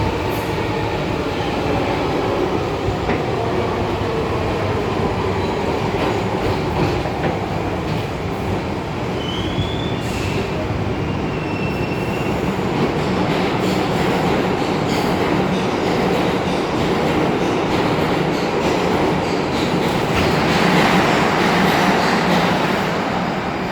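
New York City Subway R62A train running on the rails: a steady loud rumble with wheel clatter, a short high wheel squeal rising about nine seconds in and holding for a couple of seconds, and a louder rush of noise near the end.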